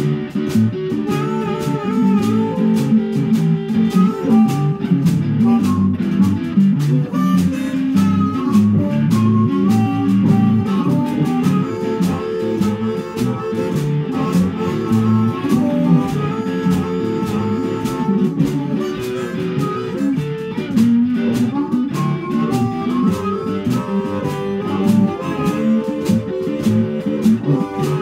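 Live blues band playing, an electric guitar carrying the tune over drums.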